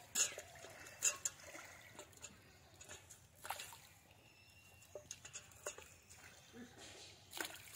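Faint, scattered drips and small splashes of water falling from a raised fishing net into shallow pond water, a few sharper ones about a second in, at about three and a half seconds and near the end.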